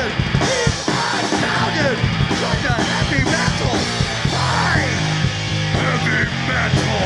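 Heavy metal band playing loudly, with yelled vocals over the band.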